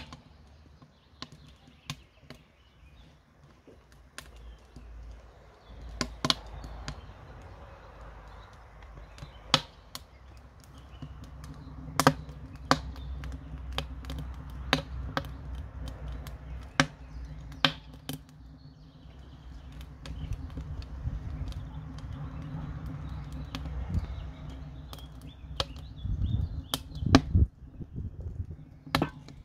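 Sharp pops and crackles from a wood-fired steel rocket stove and the hot oil in the frying pan on top of it, scattered irregularly over a low steady rumble. Near the end a wooden spoon knocks and scrapes in the pan as the mushrooms are stirred.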